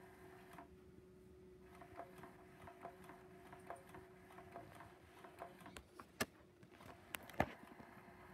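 Pounce electronic cat toy running, a faint steady motor hum with ticking and clicking from its mechanism as the feather tail moves between the holes. The hum stops about halfway through, and a few sharper clicks come near the end.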